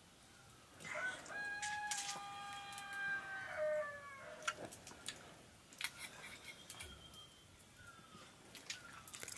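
A rooster crowing once, one long call of about three seconds starting about a second in and dropping in pitch at the end. Light clinks of spoons on steel bowls follow.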